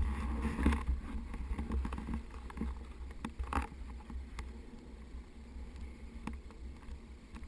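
Low, muffled rumble of a snowmobile engine running at idle, growing quieter over a few seconds, with a few faint clicks.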